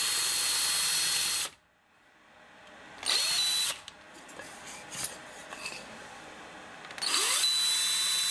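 Handheld power drill with a larger bit, run in reverse, boring a recess for a screw head into a 1x2 wood board. There are three runs, each spinning up with a steady high motor whine: the first stops about a second and a half in, a short one comes around three seconds, and a longer one starts about seven seconds in.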